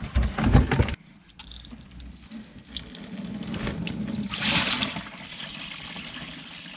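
Backed-up waste water rushing out of an opened drain cleanout into a trash can, a sign that a clog further down the line is holding the pipe under pressure. A few knocks in the first second; the flow swells to its strongest about four and a half seconds in, then runs on more steadily.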